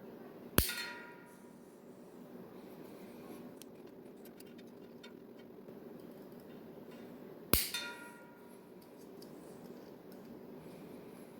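Two sharp snaps about seven seconds apart, each with a brief ringing tail: snips cutting through nylon zip ties.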